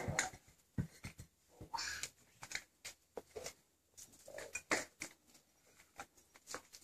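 Mare nosing and licking her newborn foal in sawdust bedding: faint, irregular rustles of the bedding with small clicks and sniffs.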